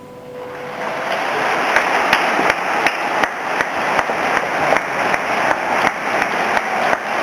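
Audience applauding, the applause swelling in the first second as the last notes of the music die away, with many separate claps standing out.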